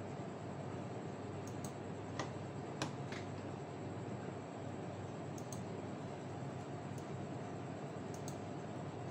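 Steady background hum and hiss, with a few scattered light clicks about two seconds in, again around five and a half seconds, and near the end.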